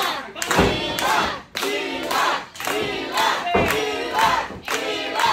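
Wrestling crowd shouting together in a steady rhythmic chant, about one shout a second, with two low thuds, about half a second and three and a half seconds in.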